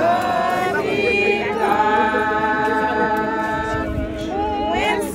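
A group of voices singing a hymn unaccompanied, drawing out long held notes.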